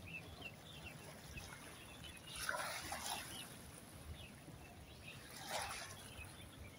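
Gentle seawater lapping against shoreline rocks, faint and steady, with a few soft washes swelling up about two and a half and five and a half seconds in.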